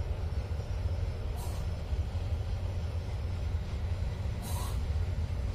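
Low, steady rumble of a distant approaching diesel train, with two short hisses about one and a half and four and a half seconds in.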